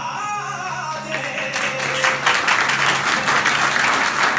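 A sung line ends about a second in, and audience applause breaks out and keeps going, over a steady low drone of background music.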